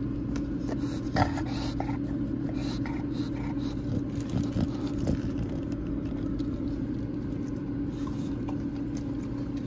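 Steady low hum of a car with its engine running, heard inside the cabin, with faint short clicks and smacks of a dog chewing french fries taken from a hand.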